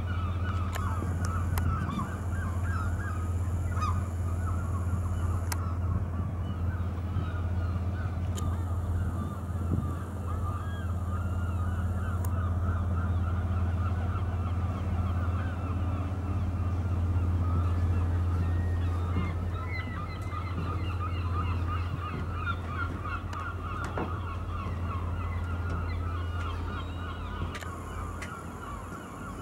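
Many gulls calling over and over in a busy flock, over a steady low machine hum.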